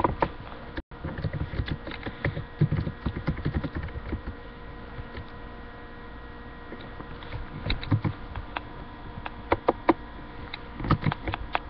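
Typing on a computer keyboard: irregular runs of key clicks in several clusters, over a steady low hum.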